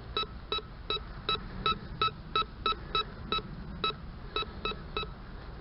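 Metal detector beeping on a buried target that it reads as a quarter about 2 inches deep: short, identical pitched beeps repeating about three times a second.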